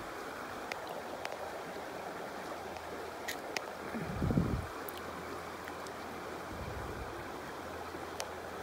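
Shallow river water running over a rocky streambed, a steady rushing, with a few small clicks and a short low thump about four seconds in as a hand moves in the water.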